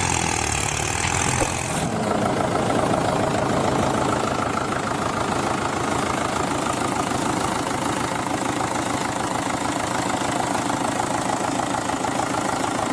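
Tractor engine sound, running steadily at idle with a fast, even chugging.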